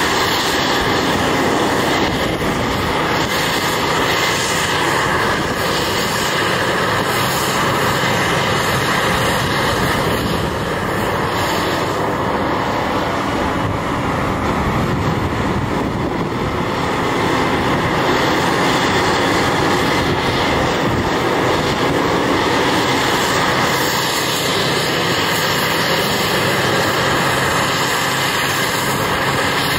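Heavy diesel mining machinery running steadily: a Cat 6015B hydraulic excavator at work. The level dips slightly about a third of the way in and picks up again past the middle.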